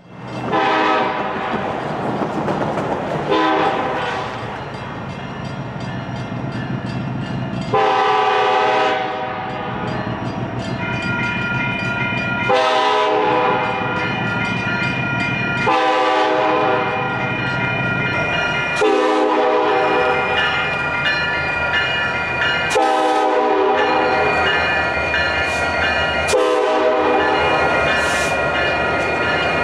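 Union Pacific SD70ACE diesel locomotive running light and sounding its air horn in about eight blasts, mostly long, with short gaps between them: grade-crossing signals. Its diesel engine rumbles under the horn and grows louder as it draws close near the end.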